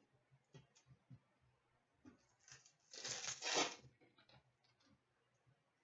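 Hockey card pack's wrapper torn open: one rasping tear of just under a second about halfway through. Faint rustles and clicks of cards being handled come before and after it.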